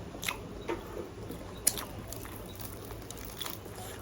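Mouth sounds of eating chicken wings close to the microphone: a few short, sharp chewing and biting clicks, the loudest a little under two seconds in.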